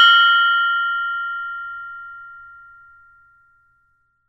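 A meditation (mindfulness) bell ringing out after a single strike: a high, clear ring of several tones together that fades away evenly and is gone about three seconds in.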